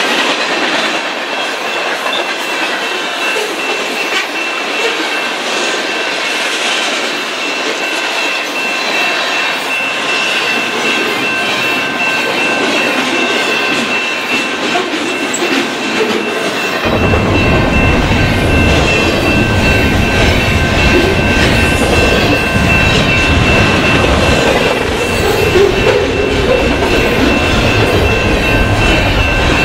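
Long freight train of tank cars, boxcars and double-stack container well cars rolling past, wheels clicking over the rail joints, with a thin steady high squeal from the wheels. A little past halfway the sound jumps much closer, adding a heavy low rumble from the wheels and cars.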